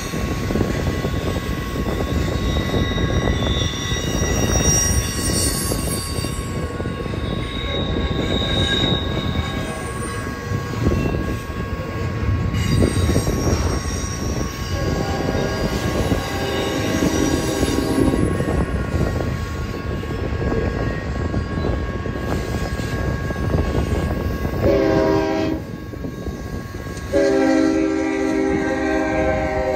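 Double-stack intermodal container train rolling past on well cars: a steady rumble and clatter of wheels on the rails. Near the end a locomotive air horn sounds twice, a short blast and then a longer one.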